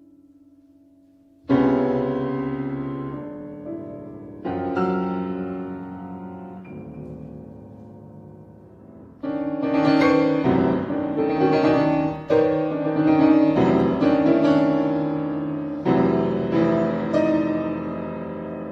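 Solo piano playing: a faint held note dies away, then a loud chord struck about a second and a half in rings and fades, with another about three seconds later. From about nine seconds in comes a denser, louder passage of repeated struck chords, and one more loud chord near the end.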